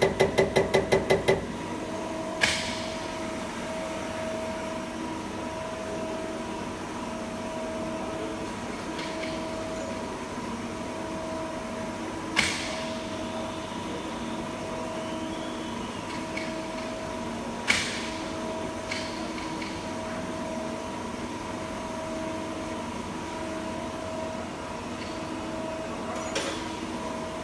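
CAT900 injector test bench firing a Caterpillar HEUI injector with rapid ticking, about six a second, which stops about a second in when the test is stopped. The bench then runs with a steady hum and a faint tone pulsing about once a second, broken by a few single sharp clicks.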